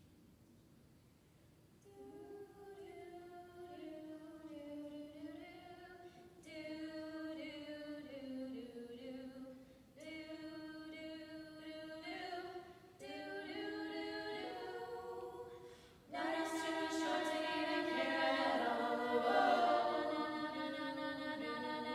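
All-women a cappella group singing. After a couple of seconds of quiet, a few voices come in with held chords, phrase by phrase, and about sixteen seconds in the full group joins, much fuller and louder.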